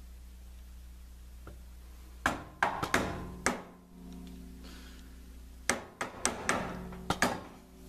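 Soft-faced mallet tapping a steel drill press arbor to seat it in the spindle taper after it has been turned 180 degrees. Two runs of five or six sharp taps, about three seconds apart, each tap followed by a short metallic ring from the press.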